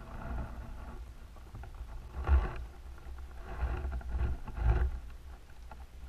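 Muffled underwater sound from a camera submerged in a creek: a steady low rumble of moving water, with a few louder swishing surges, the strongest a little over two seconds in and near five seconds.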